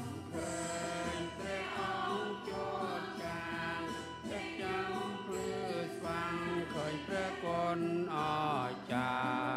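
Small choir of men and women singing a hymn together, several voices moving in pitch as one line.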